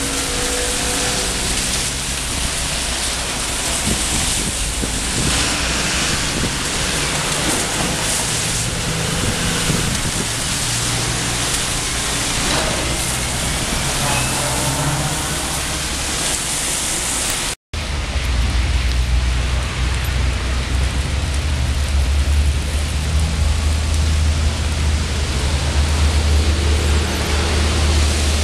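Wet-weather city traffic: tyres hissing on wet roads and passing vehicles, over steady rain noise. After a brief dropout a little past halfway, a steady low engine hum runs under the noise.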